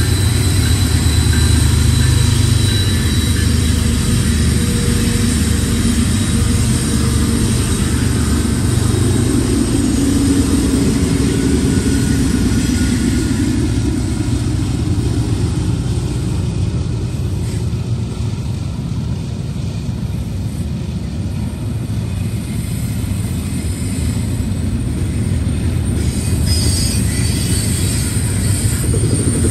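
Freight train passing close by: a lashup of BNSF GE diesel locomotives runs past with a heavy low engine rumble, which gives way over the second half to the steady rolling noise of double-stack intermodal cars on the rails.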